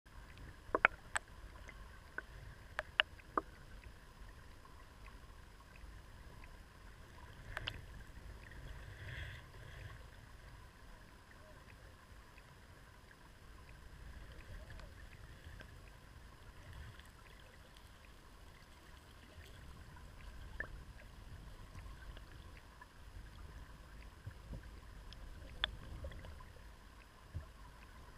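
River current heard underwater over a shallow gravel bed: a low, steady rumble with scattered sharp clicks, several close together in the first few seconds.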